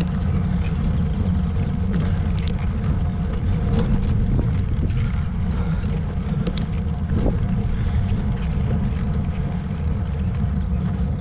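Steady low rumble of wind and road noise on a moving camera's microphone, with a couple of faint ticks.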